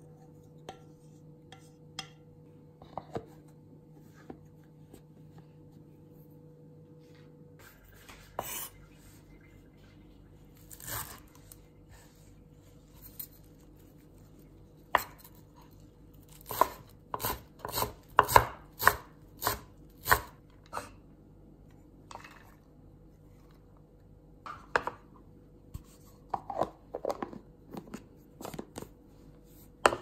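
Chinese cleaver chopping fresh coriander on a wooden cutting board: runs of sharp knocks about two a second, the loudest in the middle, with a few light taps earlier.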